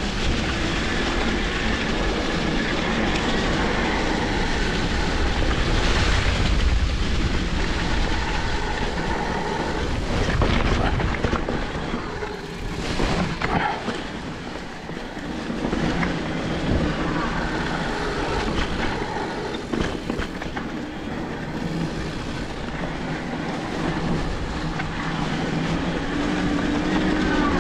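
Riding noise of a Greyp G6.3 electric mountain bike on a trail: tyres rolling over the ground with a continuous low rumble and rattle, easing off briefly a few times.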